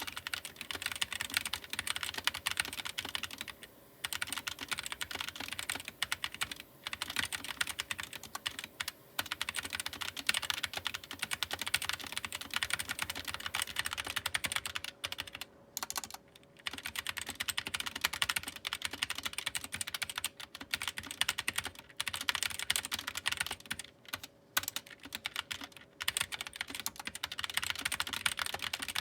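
Fast typing on a GK61 60% mechanical keyboard with optical switches: a steady clatter of keystrokes, broken by a few brief pauses.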